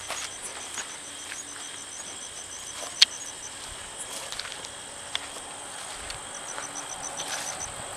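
Crickets chirping at night: a steady high-pitched drone with rapid, evenly spaced pulsed chirps that pause in the middle and come back near the end. A single sharp click about three seconds in is the loudest sound, with a fainter one about two seconds later.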